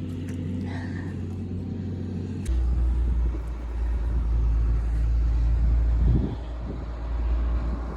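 Tractor engine running steadily, with a heavier low rumble coming in sharply about two and a half seconds in.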